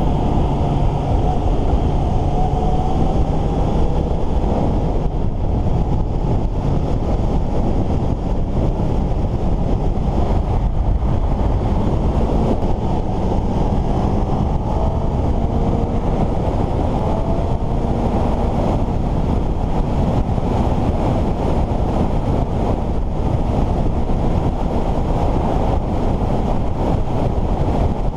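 Heavy wind rush on the microphone at riding speed, with a Suzuki GSX-S750's inline-four engine faintly heard under it, its pitch slowly rising and falling as the bike runs through the curves.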